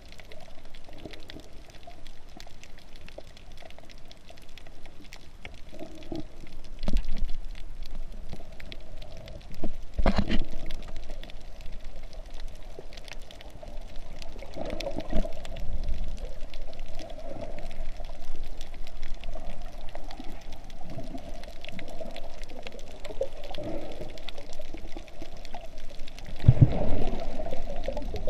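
Muffled underwater sound picked up by a GoPro in its waterproof housing while snorkeling: a steady water-filled hiss with a hum-like band, broken by several louder splashing surges, the biggest near the end.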